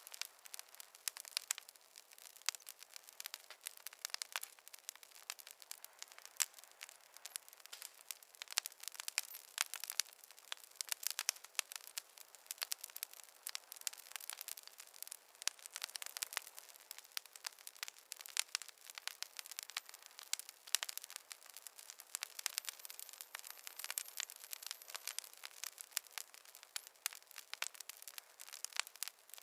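Wood fire crackling: a dense, irregular run of sharp pops and snaps over a faint hiss.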